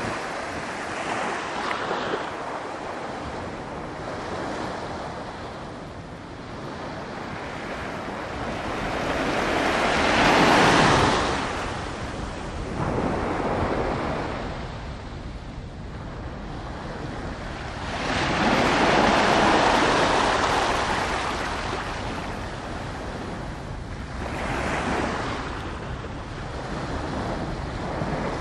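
Small waves washing on the shore, the wash swelling and fading, loudest twice: near the middle and about two-thirds of the way through. There is some wind on the microphone.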